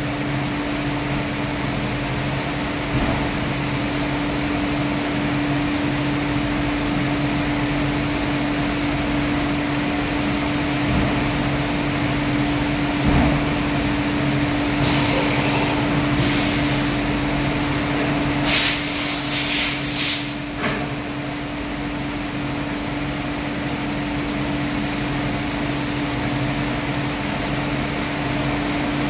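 Steady hum of a CNC vertical machining centre with one constant tone running under it. A handful of short hissing blasts of compressed air come about halfway through.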